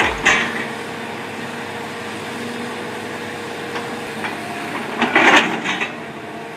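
Heavy forestry machine running steadily with a constant hum. There are sharp crashes right at the start and a louder burst of crashing and cracking about five seconds in.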